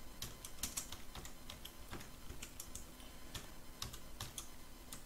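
Computer keyboard typing: a quick, irregular run of key clicks as a few short words and numbers are entered.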